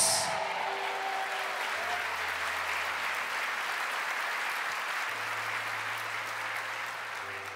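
Congregation applauding, steady and then fading away near the end.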